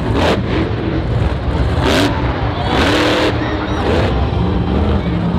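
Monster truck's supercharged V8 engine revving hard in loud bursts over a heavy, continuous rumble.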